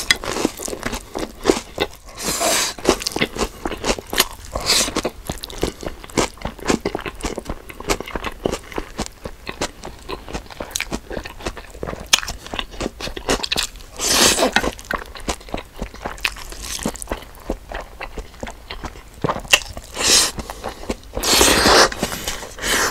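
Close-miked eating sounds: steady chewing, biting and crunching, with several longer noisy stretches of about a second each, the loudest near the end.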